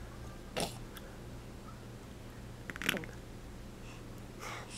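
Quiet room tone with a steady low hum, broken by three brief, soft noises: about half a second in, near three seconds, and near the end.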